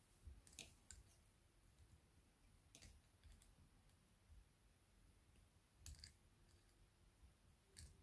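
Near silence broken by four faint clicks a couple of seconds apart: small red-handled pliers working the twisted bare copper end of a wire.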